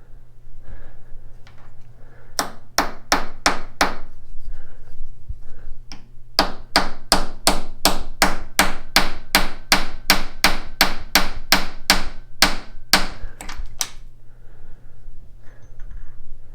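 Hammer striking metal: a few blows, then a long even run of about twenty blows at roughly three a second, over a low steady hum.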